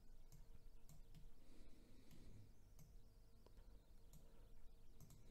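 Near silence with about eight faint, scattered clicks from a computer mouse and keyboard.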